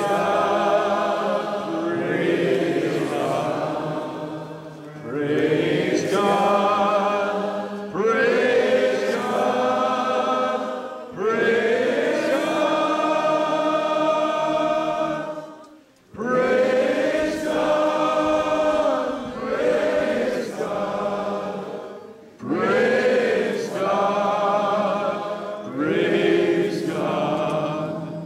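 A large crowd singing a worship song together, in sung lines of a few seconds with held notes and brief breaks between them.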